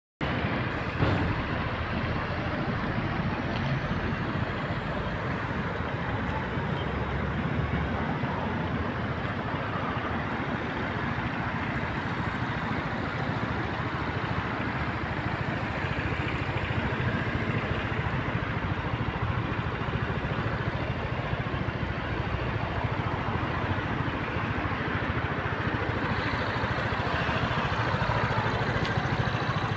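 Piaggio MP3 300 hpe three-wheeled scooter's single-cylinder four-stroke engine idling steadily, with a short knock about a second in.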